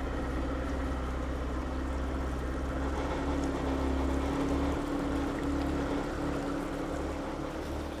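Motorboat engine running steadily under way, a constant low drone heard from inside the boat's wooden wheelhouse.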